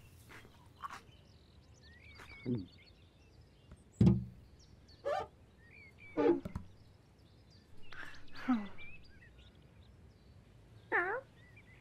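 Cartoon cat voicing short mews and chirrups, five or so spread through, over faint high bird chirps, with one dull thump about four seconds in.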